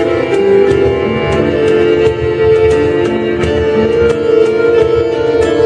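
Live acoustic ensemble music: a long-held, wavering bowed string melody over plucked strings, with sharp notes keeping a steady pulse.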